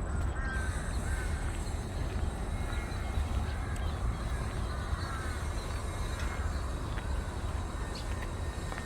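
Birds calling over and over in short arched calls, over a steady low rumble.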